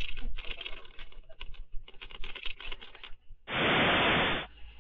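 Earthquake shaking a building: rapid rattling and clattering, then about three and a half seconds in a loud burst of noise lasting about a second as ceiling panels come down onto the floor.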